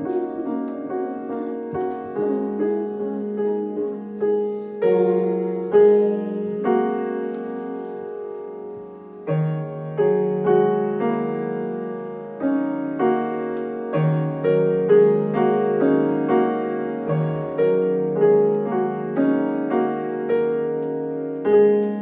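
Grand piano played solo by a child: a melody of single struck notes, each ringing and fading, over low notes that change every second or two.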